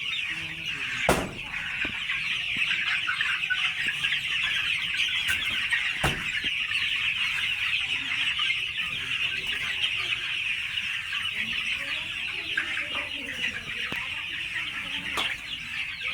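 A brood of desi chicks peeping continuously, many high chirps overlapping into a steady chorus. Two sharp knocks cut through it, about a second in and again about six seconds in.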